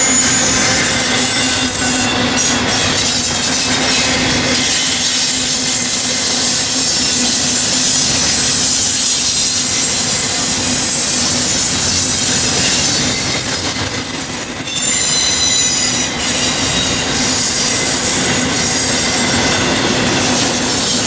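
Double-stack intermodal container train's well cars rolling past on steel rails: a steady loud rush of wheel noise, with thin high squealing tones from the wheels, strongest a little past the middle.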